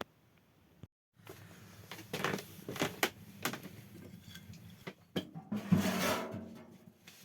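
A string of knocks and clunks, like things being handled or set down, with a louder noise lasting about a second near the end.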